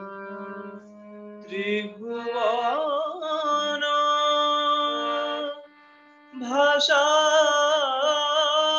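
A man singing a slow devotional song solo, holding long notes with a wavering pitch, over a sustained accompaniment. He breaks off briefly just past the middle, then comes back in louder on a long held line.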